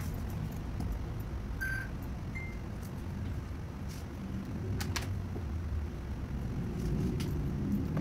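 A steady low rumble of background noise, with a few sharp computer-mouse clicks and a short high tone about two seconds in.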